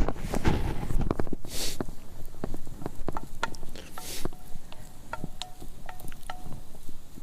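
A run of small scattered clicks and knocks, with two short rustling hisses, one about a second and a half in and one about four seconds in.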